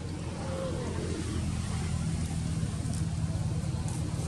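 Steady low hum of an engine running, with a faint brief squeak about half a second in.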